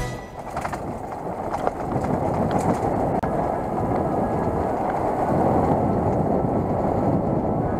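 Steady wind buffeting a moving action camera's microphone, with rumble and a few faint knocks from travelling fast over a rough cobbled path.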